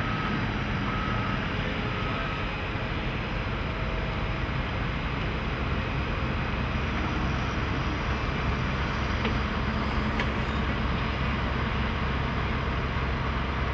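Heavy diesel construction machinery running steadily, a continuous low engine rumble. A backup alarm beeps a few times in the first couple of seconds.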